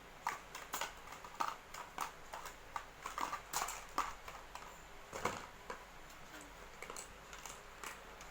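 Irregular taps, clicks and rustles of boxes and packaging being handled and opened, with one sharper knock about five seconds in.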